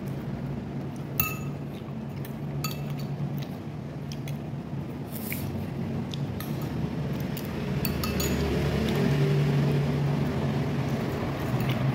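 Metal spoon and fork clinking against a ceramic soup bowl while eating, several sharp clinks, the loudest about a second in with a brief ring. A steady low hum runs underneath and gets louder in the second half.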